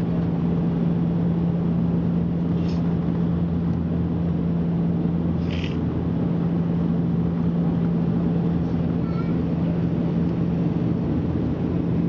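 Cabin noise inside a Bombardier Dash 8 Q400 turboprop airliner during its descent to land: the steady drone of its Pratt & Whitney PW150A engines and propellers, with a strong low hum that holds one pitch.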